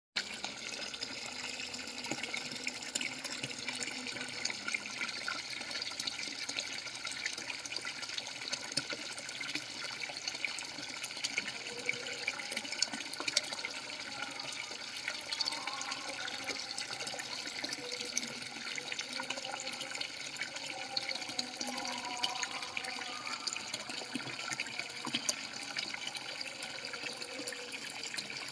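Steady running water, a continuous splashing trickle with many small drips and splashes in it.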